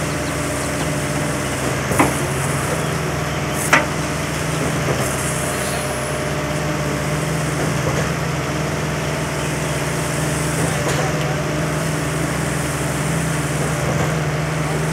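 Monkey lift building-material hoist's electric motor and winch gearing running steadily, a constant hum, with two sharp clicks about two and four seconds in.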